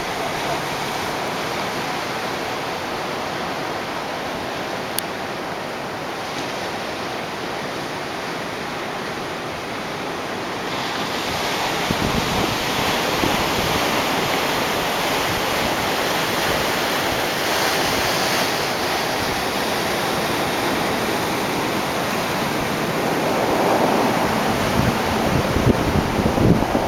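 Ocean surf: waves breaking and washing up the beach as a steady rush of noise, growing louder and brighter about halfway through. Wind buffets the microphone near the end.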